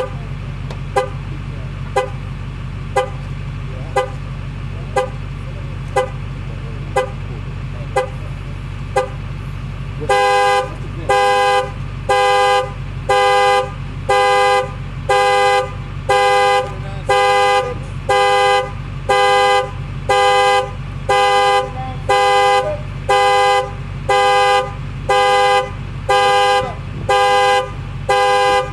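A car's horn sounding in short blasts about once a second as its alarm pulses, starting about ten seconds in; before that, short beeps tick once a second. An engine idles steadily underneath.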